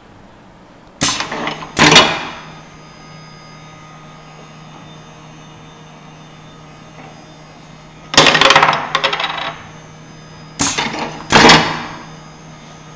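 Pneumatic actuators of a small automated parts-handling station cycling: sudden sharp clacks, each with a short hiss of air, two about a second in, a longer one about eight seconds in, and two more near the end. A steady low hum runs underneath.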